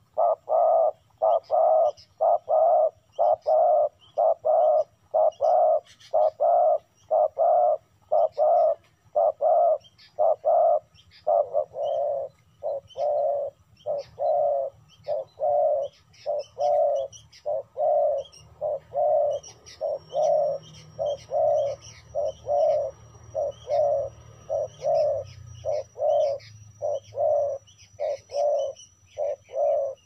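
Spotted dove cooing: short coos repeated steadily at about two a second, with brief high chirps faint behind them.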